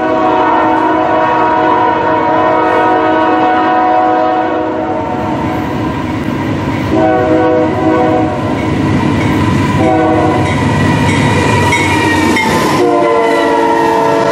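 Air horn of a CN freight locomotive blowing the grade-crossing signal as the train closes on the crossing: a long blast, a shorter one, a brief one, then a long blast held as the locomotive reaches the crossing. Under the horn runs the steady rumble of the locomotive and its wheels on the rails.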